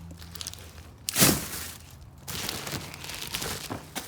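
Parts packaging crinkling and rustling as it is handled, loudest in a sharp crinkle about a second in.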